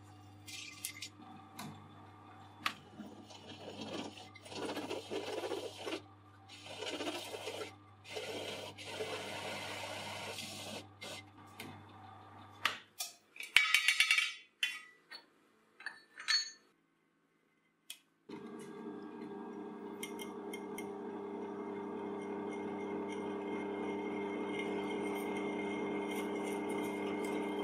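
Drill press motor running while a bit cuts into steel tube, with bursts of scraping from the cutting. Then loud clinks and scraping as metal chips are swept off the vise. After a brief gap the drill runs again, steadily, drilling another steel tube.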